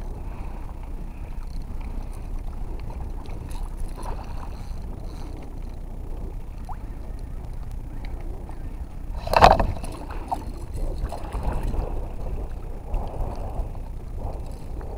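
Sounds from a fishing kayak on the water: a steady low rumble of water and wind against the hull and microphone, with small scattered knocks. A loud, short clunk or splash comes about nine and a half seconds in.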